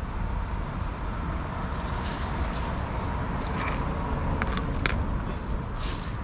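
Steady low outdoor background rumble, with a few faint sharp clicks a little over four seconds in.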